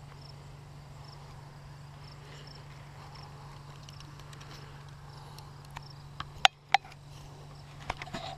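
Quiet field ambience with faint, repeated cricket chirps over a steady low hum. A couple of sharp knocks about six and a half seconds in and smaller clicks near the end come from the head-mounted camera being handled.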